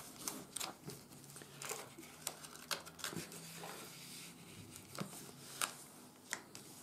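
Sheet of 80 g/m² office paper being folded and creased by hand: quiet, irregular crinkles and rustles with a few sharper papery clicks.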